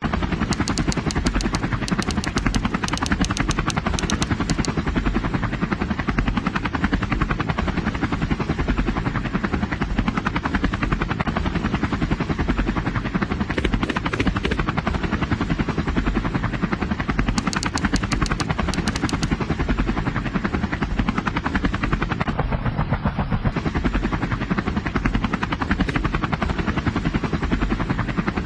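Helicopter sound: the rotor beating in a steady, rapid chop, starting suddenly.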